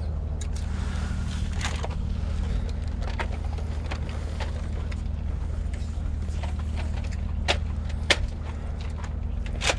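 A steady low engine-like hum with scattered sharp clicks and knocks over it.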